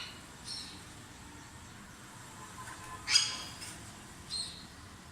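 Sun conure (parrot) giving three short, sharp calls, the loudest about three seconds in.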